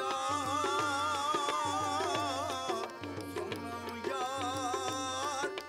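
Live folk music: a flute plays a wavering, ornamented melody over steady drum strokes. The melody breaks off for about a second near the middle, then comes back.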